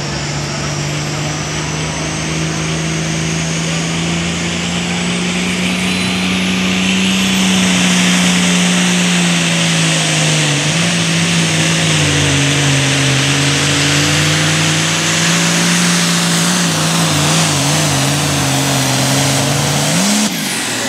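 Super Farm pulling tractor's turbocharged diesel engine running flat out under the load of a weight sled, with a high turbo whine climbing over the first several seconds. The engine note dips about halfway and wavers later. Near the end the revs flare briefly and the throttle is cut, and the turbo whine winds down.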